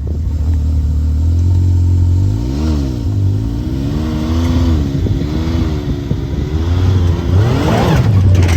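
A vehicle engine running, its speed rising and falling several times as the throttle is worked, with the loudest rise near the end.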